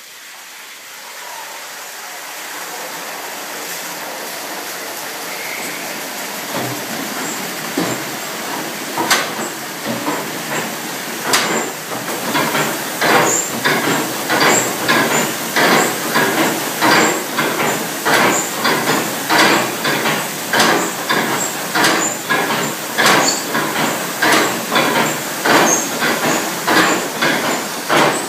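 A water-powered stamper battery for crushing gold-bearing quartz starting up. A rushing hiss of water and running belts builds for several seconds, then from about nine seconds in the stamps begin dropping in a steady beat of heavy metal blows that grows louder and more regular.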